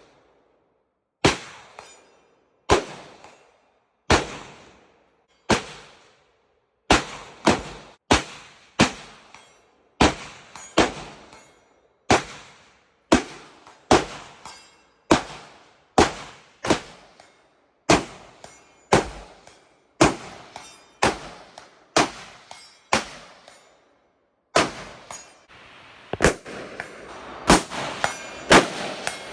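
Semi-automatic rifle fire: a long string of single shots at a little under one a second, each with a ringing tail. About 25 seconds in, after a short pause, the shots come faster and overlap.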